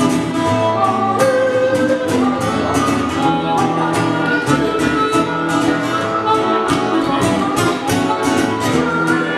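Live acoustic band music: a harmonica plays held, sliding lead notes over a strummed acoustic guitar and a plucked upright bass.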